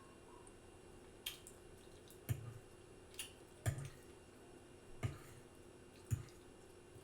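Close-miked wet mouth smacking while chewing food, about six separate smacks roughly a second apart.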